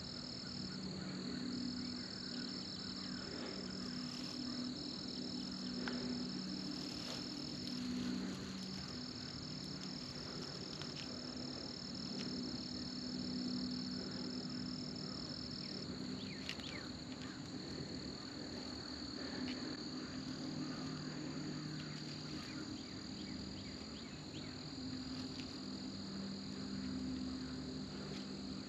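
Evening chorus of frogs and insects: overlapping steady trills, some high and some low, the low ones starting and stopping every few seconds.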